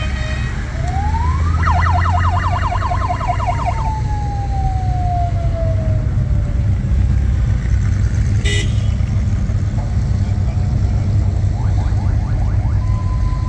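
Rally cars driving off in a line, their engines a steady low rumble. An electronic siren on one of them winds up, yelps rapidly for about two seconds, then winds slowly down. A single sharp click comes later.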